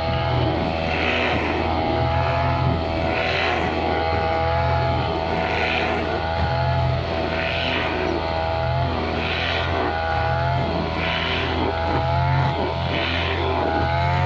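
Brushcutter engine running steadily at high speed, with a hiss that swells about every two seconds.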